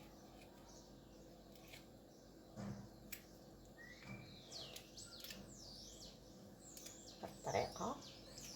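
Small birds chirping in quick, repeated rising and falling calls, with scattered light clicks and a couple of soft knocks from a knife cutting small peaches and working the pits out.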